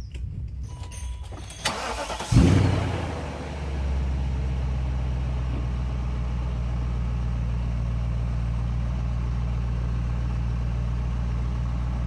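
BMW car engine being started: the starter cranks for about two seconds, the engine catches suddenly with a brief flare, then settles into a steady idle.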